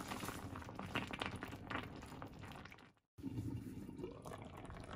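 Kimchi stew simmering and bubbling in a cast-iron pot, with a plastic bag crinkling as frozen chopped green onions and chili are shaken in. The sound breaks off for a moment about three seconds in, then a quieter simmer goes on with a low knock of the pot's lid.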